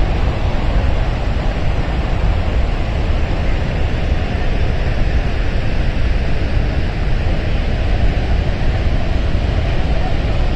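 Loud, steady rush of falling water from Athirappilly Falls, a large waterfall, deep and unbroken.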